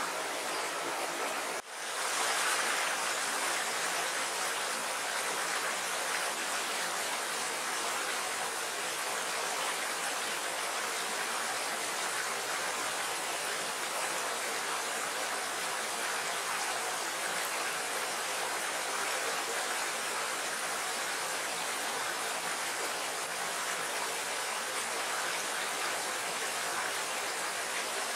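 Small rocky stream rushing over stones in a shallow riffle: a steady rush of water, broken only by a brief dropout about a second and a half in.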